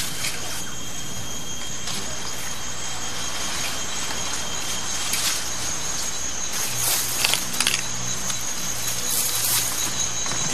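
Steady high insect buzz over a low drone, with a few short rustles or clicks around the middle and near the end.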